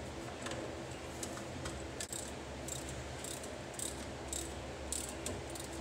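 Ratchet wrench clicking in short strokes, about one click every half second, turning the brake slack adjuster's adjusting nut to take up the slack on the new brake chamber.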